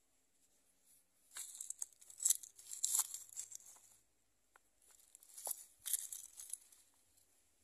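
Crinkling, rustling handling noise with small clicks, in two bursts of a few seconds each.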